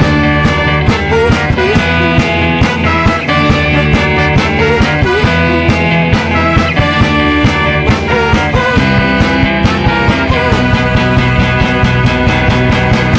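Instrumental break of an upbeat rock song with a steady drum beat, bass and a wavering lead guitar line.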